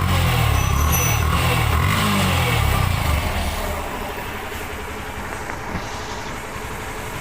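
Motorcycle engine running, loud for the first three seconds, then fading to a lower, steadier noise.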